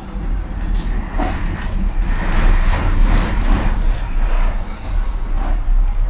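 Docklands Light Railway train running along the track, heard from inside the car. There is a steady low rumble throughout, and a louder hiss of wheel and rail noise swells in the middle. A few short clicks come near the start and near the end.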